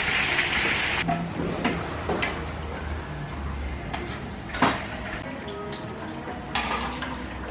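Hot oil sizzling loudly as sliced shallots deep-fry in a large aluminium wok, dropping to a quieter bubbling after about a second. A slotted metal spoon clinks and scrapes against the wok and a metal plate as the fried shallots are lifted out, with a sharp clink about halfway through and another near the end.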